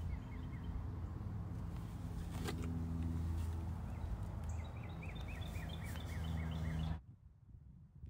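A steady low mechanical hum with birds chirping over it, including a quick run of chirps about five seconds in. The sound cuts off abruptly about seven seconds in, leaving only faint ambience and a single click.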